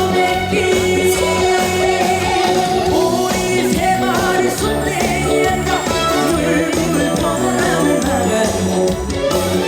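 Live trot music: a backing track with a steady beat, with a singer's voice over it.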